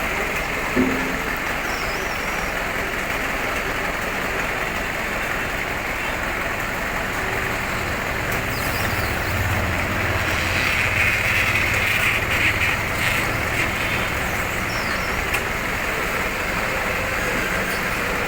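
Steady motor-vehicle noise: an engine running amid road noise, with a short knock about a second in and a low hum that swells in the middle, then eases.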